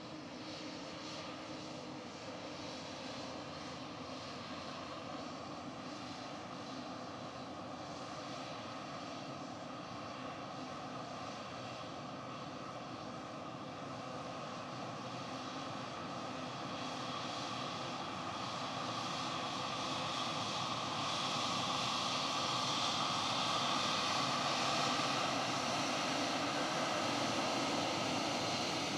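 Jet airliner engines running: a steady rush with a faint whine that grows louder over the second half as the aircraft comes nearer.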